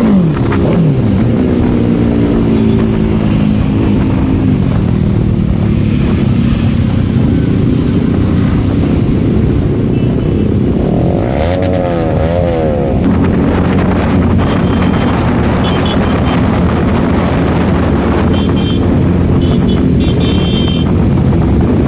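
Motorcycle engines running loudly, their pitch rising and falling with the throttle, with a fast up-and-down wavering about halfway through.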